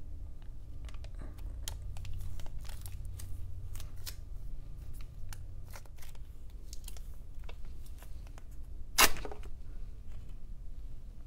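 Sally Hansen plastic wax strip crinkling and crackling as it is handled on the forearm, then ripped off the skin in one quick tear about nine seconds in, the loudest sound.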